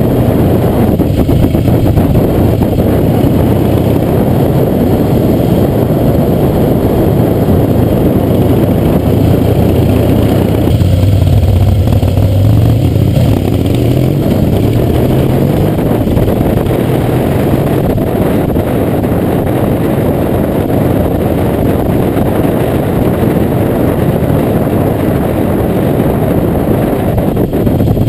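Harley-Davidson V-twin motorcycle engine running under way, heard close up from a fender-mounted camera as a steady, loud rumble. About halfway through the engine note rises for a few seconds as the bike accelerates.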